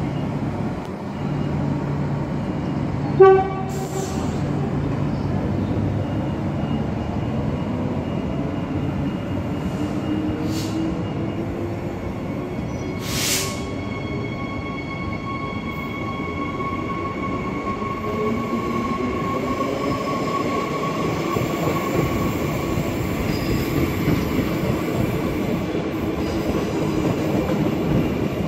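Queensland Rail electric multiple-unit trains moving through the station: steady rail noise with motor whine slowly rising and falling in pitch. A short horn toot comes about three seconds in, and a brief hiss near the middle.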